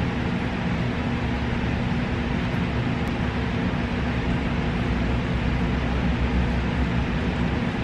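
Air conditioner running steadily: an even rush of air over a low hum. It is running nonstop because it cannot keep up with the heat.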